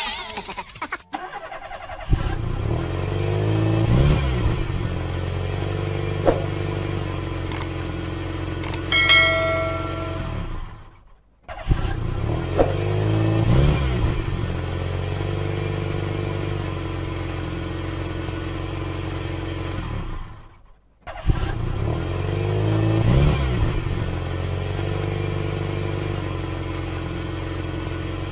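Car engine sound effect, revving up as it starts and then running steadily, played three times in a row with a short break between each. A short beep sounds about nine seconds in.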